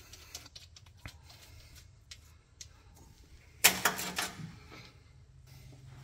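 Scattered light clicks and taps of small metal engine parts being handled and fitted, with one louder clatter a little over halfway through.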